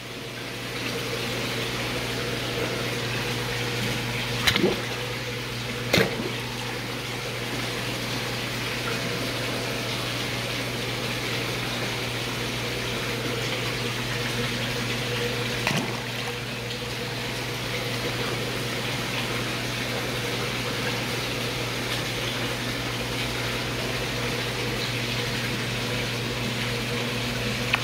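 Steady rush of running water with a low, even hum, as from an indoor pond's pump and water circulation. A few brief knocks break through, about four and six seconds in and again near the middle.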